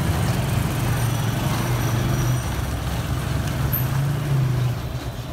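Motorcycle engine running steadily while being ridden, its pitch rising briefly about four seconds in, then settling back.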